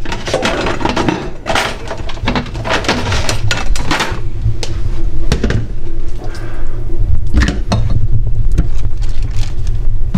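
Kitchen handling at the sink: scattered clinks and knocks of dishes and utensils as mackerel bones are put into a plastic colander, over a steady low hum.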